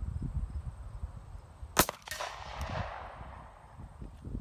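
A single shot from a Glock 26 subcompact 9mm pistol about two seconds in. Its echo rolls back and fades over about a second and a half.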